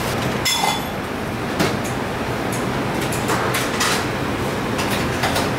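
Eatery background noise: a steady din with spoons and dishes clinking a few times.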